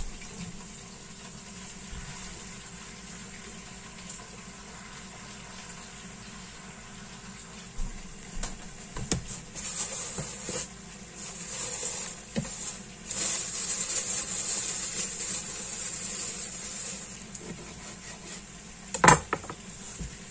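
Raw meat being handled in a plastic bowl, with irregular rustling and clattering that grows busier in the middle. One sharp knock near the end, from a knife or meat hitting the cutting board. A faint steady hiss runs underneath.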